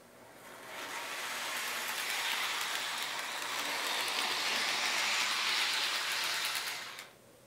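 Lionel Santa Fe RS-3 O-gauge model diesel locomotive running along the track, a steady whirring rush of motor and wheels with fine rail clicks. It grows as the locomotive comes past close by, then drops off abruptly about seven seconds in.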